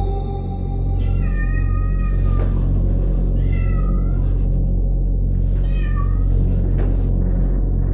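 Kitten meowing three times: a long meow that drops in pitch at its end, then two shorter ones, over a steady low hum.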